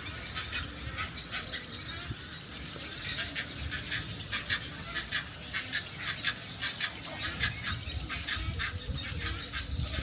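A nesting colony of wading birds calling all at once: a dense, unbroken chatter of short, rapid calls.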